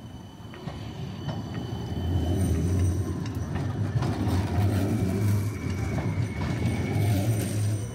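A city tram running past close by: a low rumble that swells about two seconds in and then holds, with a thin steady high whine above it and a few faint clicks.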